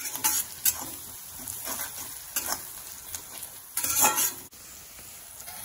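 Chopped garlic, herbs and chilli flakes sizzling in hot oil in an iron kadhai, with a spatula scraping the pan in repeated stirring strokes. The longest and loudest scrape comes about four seconds in.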